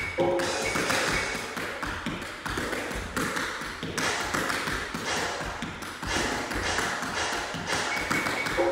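Metal tap shoes striking a hard studio floor in a fast, continuous run of taps and shuffles during a tap routine.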